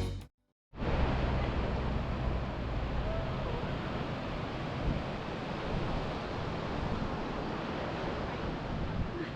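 Surf washing onto a beach as a steady rush, with wind noise on the microphone. A guitar track cuts off just at the start, followed by a brief silence before the surf comes in.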